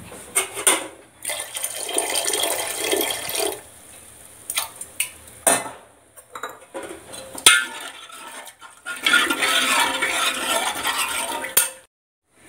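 A utensil scraping and knocking against an aluminium pot of cooked dal as the dal is worked. It comes in two long scraping stretches of about two seconds each, with separate clinks and knocks between them, and stops suddenly near the end.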